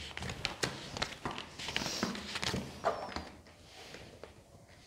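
Tarot cards being handled on a table: soft taps and rustling slides as cards are picked up and laid down, dying away after about three seconds.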